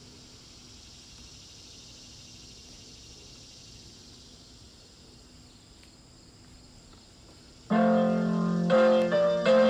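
Low outdoor ambience with a faint steady high hiss, then about eight seconds in an electric keyboard starts playing loud, sustained piano chords through an amplifier.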